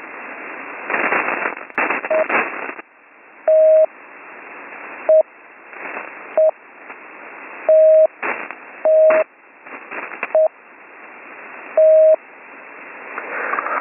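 A single-pitch Morse code tone received over HF radio, sending isolated dits and dahs one at a time with a second or more between each: eight in all, short and long mixed. The tones sit in the hiss and crackling static crashes of rough HF band conditions.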